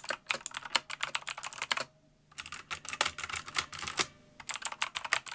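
Rapid clicking of keys being typed on a pink mechanical keyboard and then on a retro typewriter-style keyboard with round keycaps, in three runs broken by two short pauses.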